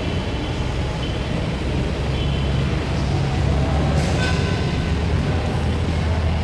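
A steady low rumble, with a brief faint click about four seconds in.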